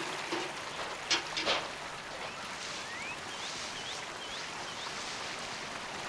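Bald eagle calling: a run of about five short, high whistled notes, each rising in pitch, starting about two seconds in. Underneath is a steady rush of running water, with two sharp clicks about a second in.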